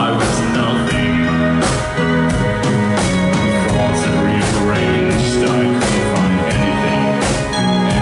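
Live rock band playing: electric guitars, bass, keyboard and a drum kit keeping a steady beat.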